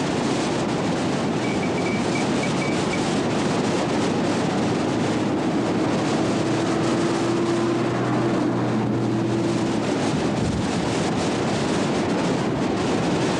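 Steady drone of a boat's engine, with wind rushing on the microphone.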